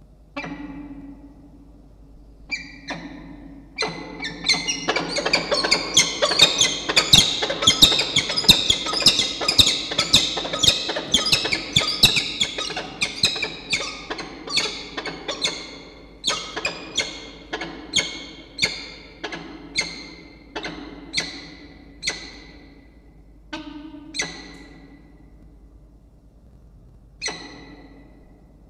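Pair of peregrine falcons calling to each other in a pair-bonding display. A fast, dense run of repeated calls, about three a second, swells a few seconds in, then slows to spaced single calls that fade, with one last call near the end.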